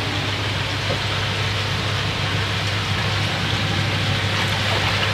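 Steady rush of water and air bubbling into a koi holding vat, with a low, even pump hum underneath.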